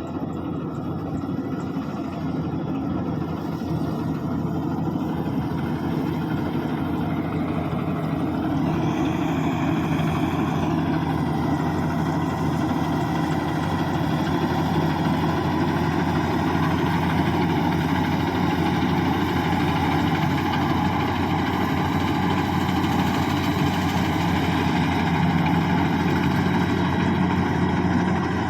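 Rice combine harvester's engine running steadily. About a third of the way through, a higher whine rises and falls briefly.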